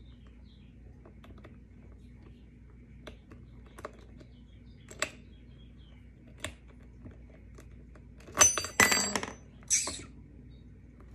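Metal skate tool clicking against a roller skate's axle nut and wheel as the nut is loosened to change the wheels. Scattered light clicks, then about three-quarters through a louder burst of metal clinking with a bright ringing, and another shortly after.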